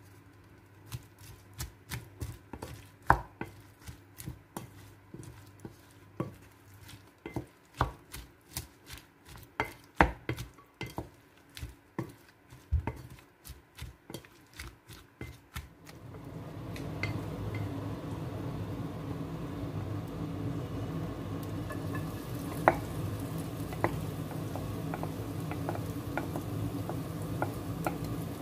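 Wooden spatula clacking against a ceramic plate in quick, irregular strokes as shredded cabbage and corn are stirred together with egg. About sixteen seconds in this gives way to a steady frying hiss with a low rumble from the pan on a gas stove, broken by a few spatula taps.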